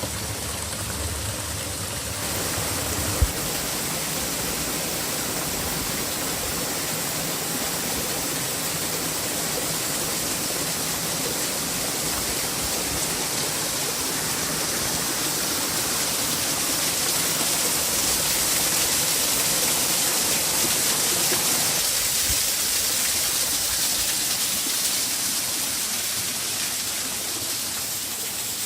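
Steady rush of flowing water, a loud even hiss whose tone shifts twice, with one sharp knock about three seconds in.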